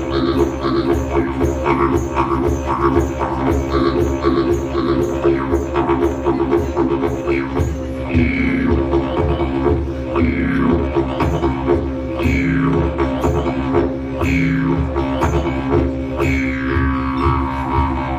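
Music built on a steady low drone with a rhythmic pulse. From about eight seconds in, a falling sweep in pitch comes roughly every two seconds.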